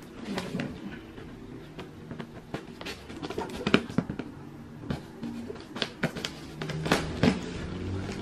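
Scattered clicks, taps and rustles of a cardboard shipping box and its contents being handled during unpacking, the loudest tap about four seconds in, with music playing faintly underneath.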